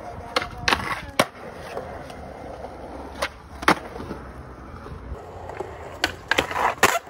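Skateboard wheels rolling on concrete, with several sharp clacks as the board is popped and lands on the ground during flat-ground tricks.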